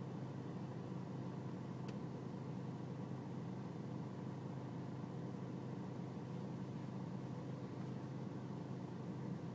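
BMW E46 320Cd's four-cylinder diesel engine idling steadily, an idle the owner calls rough, with a faint click about two seconds in.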